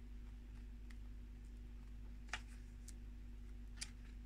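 Quiet room with a steady low hum, and a few short paper clicks as a paperback guidebook's pages are handled, the clearest two about two and a half and four seconds in.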